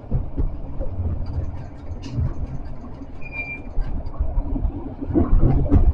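Tram running through a tunnel, heard from inside the cab: a low rumble of wheels on rails with scattered clicks and knocks. A brief high squeal comes about three seconds in, and the rumble grows louder near the end.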